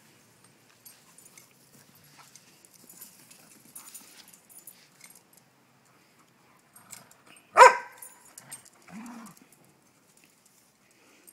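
A dog barks once, short and sharp, about two-thirds of the way in, followed about a second later by a brief low sound. Faint rustling comes before it.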